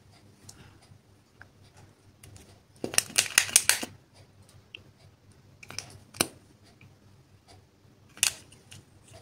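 Small plastic makeup containers clicking as they are handled and opened: a quick run of sharp plastic clicks about three seconds in, then single clicks around six and eight seconds.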